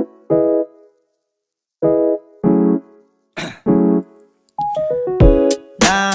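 Background music: electric-piano-style keyboard chords played in short stabs with gaps between them. A bass line and drum hits join in about two-thirds of the way through.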